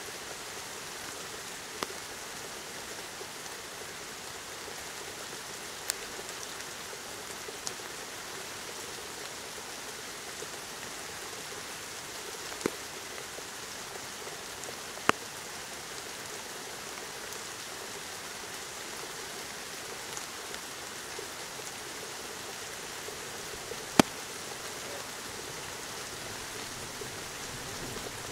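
Steady rain from a thunderstorm, an even hiss of drops falling on surfaces, broken by a few sharp single taps of drops striking close by, the loudest near the end.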